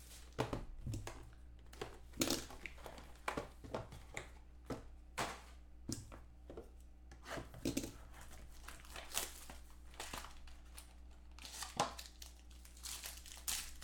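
A box of trading cards being unwrapped and opened by hand, its plastic wrapping crinkling and tearing in irregular crackles and rustles.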